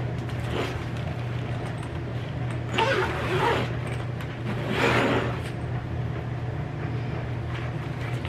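Zips and fabric of a soft-sided pet carrier being worked by hand: two short strokes, about three and five seconds in, over a steady low hum.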